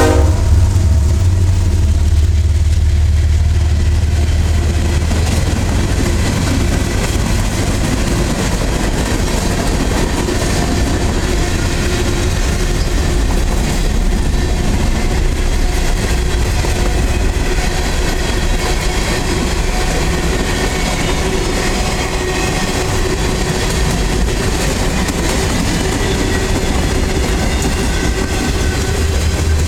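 A CSX rock train passing at close range: its freight cars rolling over the rails with a steady heavy rumble and a clickety-clack from the wheels.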